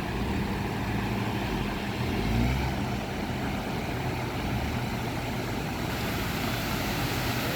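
Motor vehicle engine running steadily under a steady wash of noise, its revs rising briefly about two seconds in.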